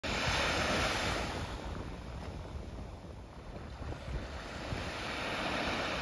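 Small waves washing up onto a sandy beach: the wash is loudest in the first second or so, eases off around the middle and builds again near the end. Wind rumbles on the microphone underneath.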